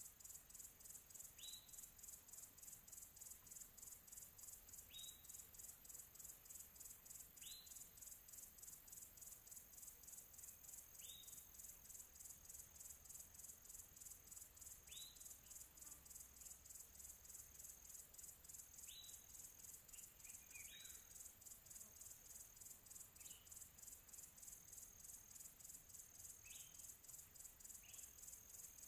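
Near silence with faint, steady, high-pitched insect chirping in a fast even pulse, and a short falling chirp every few seconds.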